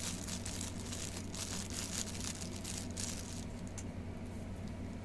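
Packaging being handled: irregular rustling and crinkling with light clicks, as keyboard accessories are taken out of their wrapping, over a steady low hum.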